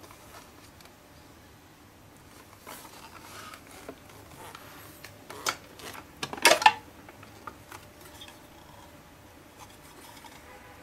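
Hard plastic parts of an electric pencil sharpener being handled: light rubbing and small clicks, with a louder plastic scrape and clatter about six seconds in as the clear shavings receptacle is pulled out of the body.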